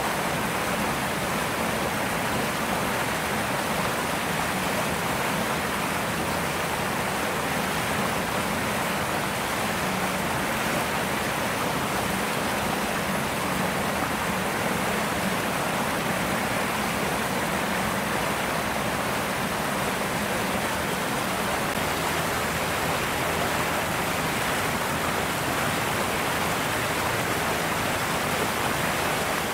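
Steady, even rushing noise at a constant level with no distinct events, with a faint low hum under it.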